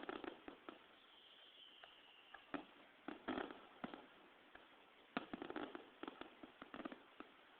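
Fireworks crackling and popping in several quick clusters of sharp cracks, the strongest about five seconds in.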